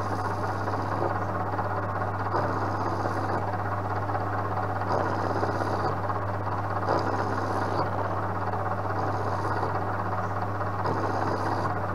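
Vertical milling machine running steadily with a long-series end mill cutting a nylon workpiece turned on a spin indexer. The motor hums constantly, and a higher hiss of cutting comes and goes about every two seconds.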